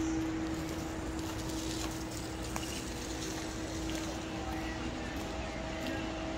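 Steady background ambience: a constant low hum over an even bed of noise, with faint distant voices now and then.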